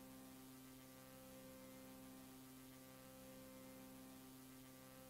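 Near silence with a faint, steady hum made of several fixed tones.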